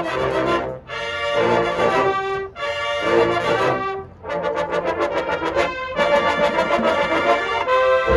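Marching band brass section playing sustained chords in short phrases, with brief breaks between them.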